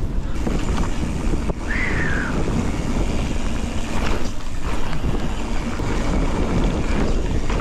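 Mountain bike rolling over a dirt fire road: steady rumble and rattle of the tyres and bike on loose dirt, mixed with wind buffeting the microphone. A brief falling squeal comes about two seconds in.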